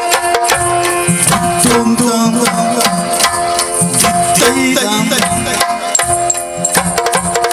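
Yakshagana percussion: a chende drum beaten with sticks, together with the maddale, in fast, dense strokes over a steady drone.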